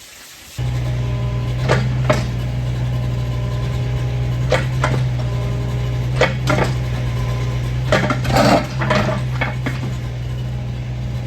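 An engine starts running steadily at idle a moment in, with short knocks and clanks on top every second or two, and a quick flurry of them near the end.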